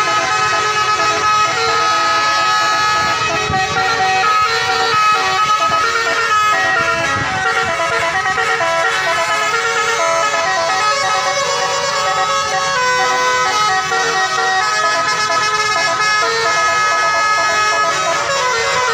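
Telolet-style multi-tone horn playing a melody of held notes that change in steps, several tones sounding together without a break.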